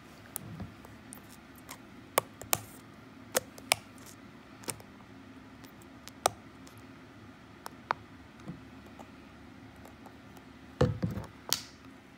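Scattered light clicks and taps of a plastic cup, domed lid and straw being handled, one at a time and irregularly spaced, with a louder burst of handling clicks and rustle near the end.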